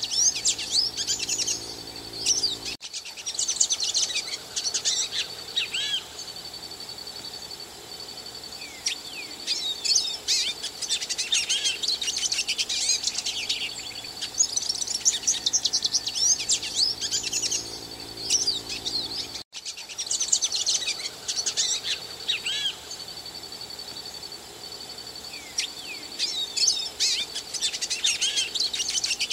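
European goldfinch singing: bursts of fast, liquid twittering phrases with a dry buzzy trill, separated by short pauses.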